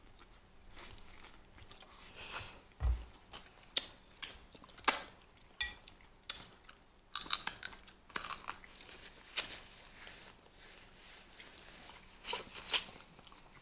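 Close-up eating sounds from a seafood boil: irregular crunches and sharp cracks as crab and lobster shells are broken open, mixed with chewing, in several clusters with a quieter pause near the middle.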